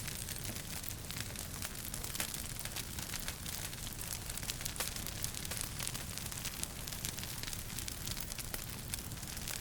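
Wood fire crackling in a fireplace: frequent sharp pops and snaps over a steady low rumble and hiss of the flames.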